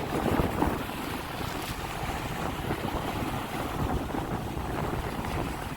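Sea waves washing on the shore, with wind buffeting the microphone in low rumbling gusts.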